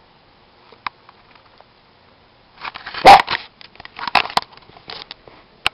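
A Maltese dog gives one short bark about three seconds in, followed by a couple of seconds of rustling and knocking close to the microphone.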